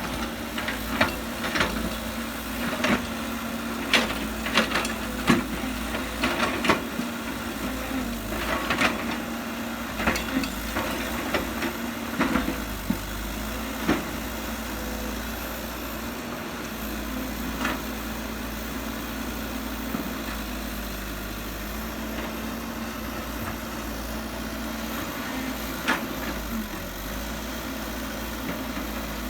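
Diesel engine of heavy earthmoving machinery running steadily with a constant hum, with a series of sharp metallic clanks and knocks through the first half and one more near the end.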